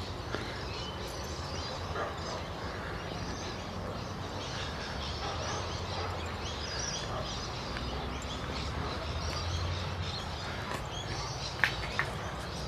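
Outdoor ambience: faint scattered bird chirps over a low steady rumble, with a single sharp click near the end.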